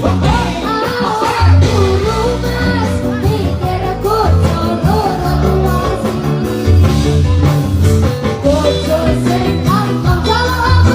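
A dangdut song playing, with a sung melody over heavy, pulsing bass.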